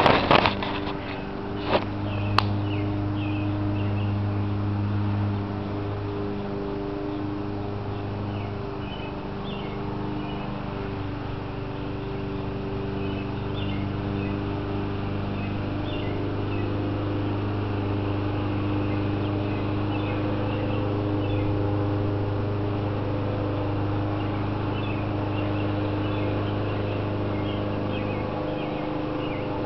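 A steady low hum runs under faint, high chirps that are scattered throughout. A few sharp clicks come in the first couple of seconds.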